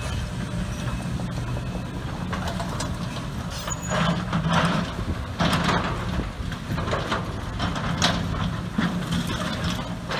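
Case excavator's diesel engine running steadily while its grapple works through demolition rubble, with several spells of crunching and clattering debris, the loudest about four to six seconds in.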